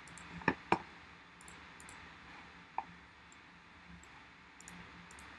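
A few sharp clicks from working a computer: two close together about half a second in, a single one near the three-second mark, and fainter ticks near the end, over faint room hiss.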